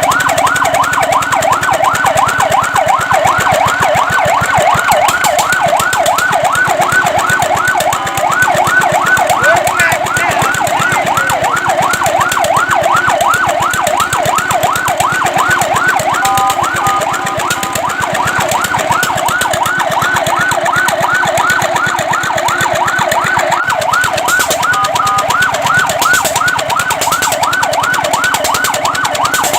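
Fire truck siren in a fast yelp, its pitch sweeping up and down about four times a second. Three times it breaks briefly into short held tones, then goes back to yelping.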